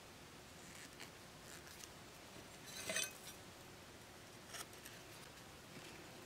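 Machete blade cutting twine at a lashing on a wooden stick frame: a short scraping cut about halfway through, with a smaller scrape shortly after. Faint rustling and tapping of string and sticks around it.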